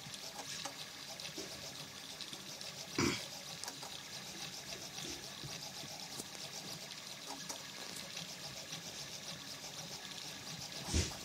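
3D printer running: its stepper motors give a steady high whir full of fast fine chatter as the print head moves over a gear being printed. Two short, louder noises stand out, about three seconds in and near the end.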